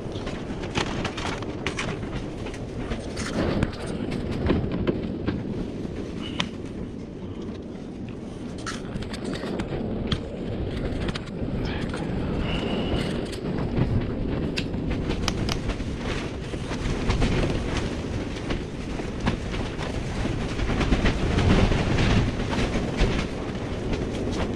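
Scattered clicks and knocks of a screwdriver and hands working the plastic grille trim and headlight clips on a VW Golf Plus front end, over a steady low rumble.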